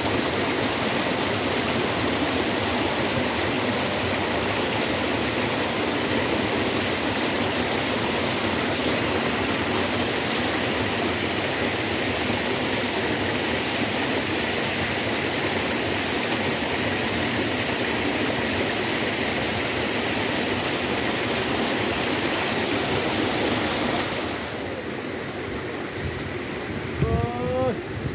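Steady rushing water, like a fast stream. It drops in level about 24 seconds in, and near the end there is a brief pitched sound that rises.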